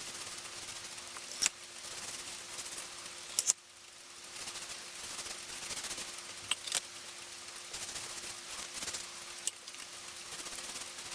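Hand rubbing and scrubbing at small metal clock parts, a fluctuating scraping hiss with a few sharp clicks and taps as pieces are handled and set down.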